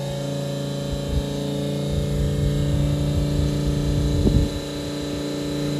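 Electric transfer pump on a diesel fuel cell, run from a jump-starter pack, giving a steady hum as it pumps diesel. A louder, uneven low rumble rises under it from about a second in and fades just after the middle.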